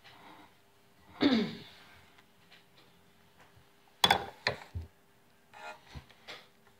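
Handling noises at a glass mixing bowl: a short squeak falling in pitch about a second in, then a cluster of sharp clicks and knocks about four seconds in, and a few lighter clicks near the end.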